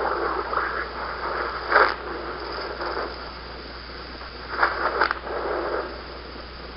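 Static-like hissing noise over a steady low hum, swelling into louder bursts about two seconds in and again near five seconds, then fading. It comes from a played-back audio recording presented as "HAARP sounds".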